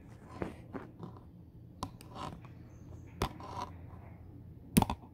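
Handling noise from a handheld phone being moved around: scattered light clicks and rubs, with a sharper click near the end.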